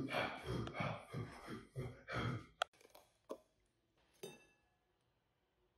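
Breathy, sigh-like vocal pulses for the first two and a half seconds, then a sharp click, and about four seconds in a table knife clinks once against a glass jar of chocolate spread with a short ringing tail.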